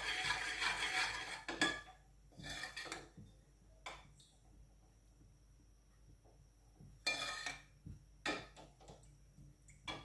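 A cooking utensil scraping and stirring in a pan of melting ghee: a continuous rub for the first second and a half, then short separate scrapes with a quiet stretch in the middle.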